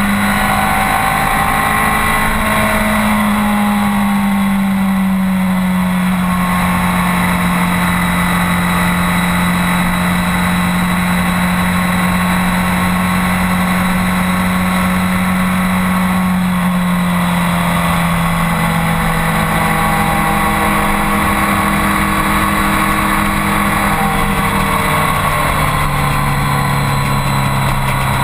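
BMW K1200R's inline-four engine running at a steady cruise, its pitch easing slowly lower with a couple of small steps down, over rushing wind noise.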